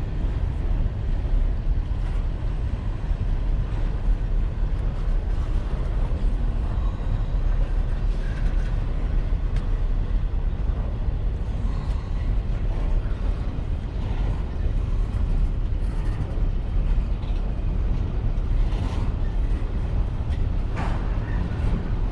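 Double-stack intermodal freight train rolling past on its well cars: a steady low rumble of steel wheels on rail, with scattered faint clicks.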